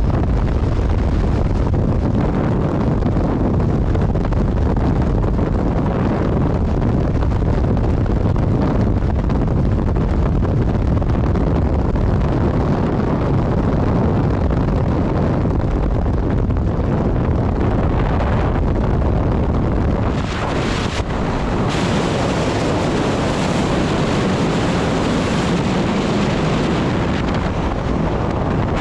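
Freefall wind rushing over a skydiver's camera microphone: a loud, steady, deep buffeting rush that turns hissier about twenty seconds in.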